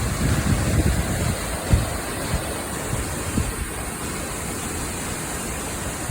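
Steady rush of a waterfall, with wind buffeting the microphone in low gusts that are strongest in the first couple of seconds.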